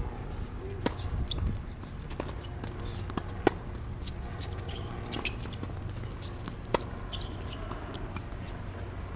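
Tennis ball being struck by racquets in a serve and rally on a hard court: sharp pops of strings hitting the ball, the loudest about three and a half seconds in and another near seven seconds. Fainter hits and bounces come from the far end of the court, over a steady low rumble.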